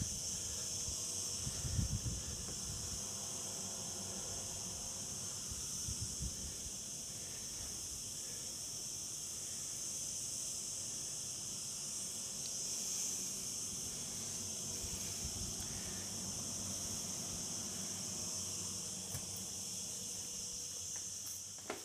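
A continuous high-pitched chorus of insects, steady throughout, with a brief low rumble about two seconds in.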